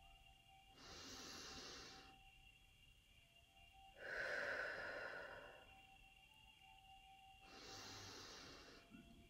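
Three slow, deep, soft breaths by a person, each about a second long and a few seconds apart; the middle one, about four seconds in, is the loudest. These are the three guided breaths of a meditation.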